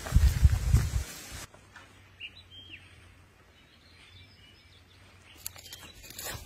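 Low thumps and rustling for the first second and a half, then a quiet stretch with a few short bird chirps. Near the end come sharp clicks of a cat chewing food held out to it with tongs.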